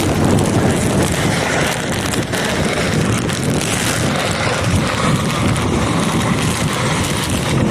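Torrential rain and storm wind during a tornado-warned thunderstorm: a loud, steady rushing.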